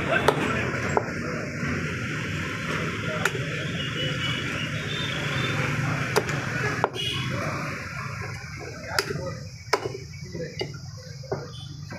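Heavy meat cleaver chopping lamb heads on a wooden stump block: about nine sharp chops at irregular intervals. They sound over a steady background noise that drops away about seven seconds in.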